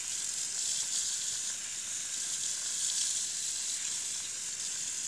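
Kitchen faucet running a thin, steady stream of water that splashes into a sink filled with soap suds.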